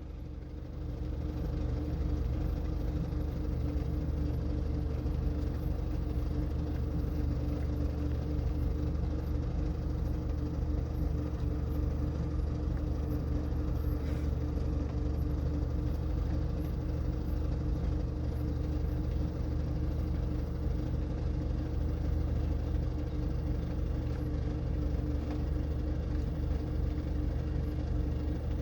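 An engine running steadily at idle: an even low hum with constant tones that fades in over the first second and does not change.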